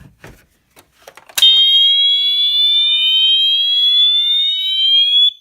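A few light clicks, then about a second and a half in a Wheelock MT horn strobe starts sounding its siren tone. The loud, high-pitched tone glides slowly upward for about four seconds and cuts off near the end.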